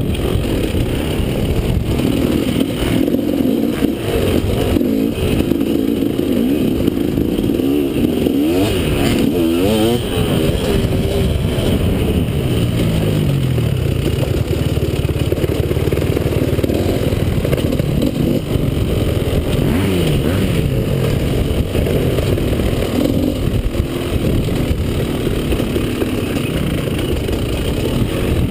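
Enduro dirt bike engine heard from a camera mounted on the bike, revving up and down continuously as it is ridden along a rough trail.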